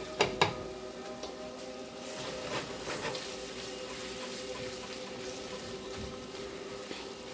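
Two sharp knocks near the start, like a utensil striking the pan, then faint sizzling from chicken and vegetables frying, over a steady humming tone.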